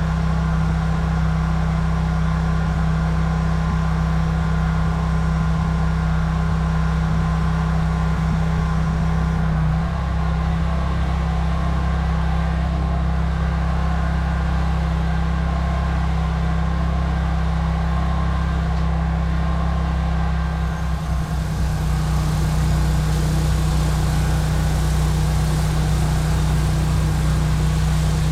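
Pressure washer engine running steadily with a low, even drone. A little over two-thirds of the way through the level dips briefly, and after that a high hiss is louder.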